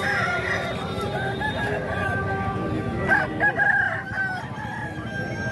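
Game roosters crowing, with one long crow held through the last few seconds.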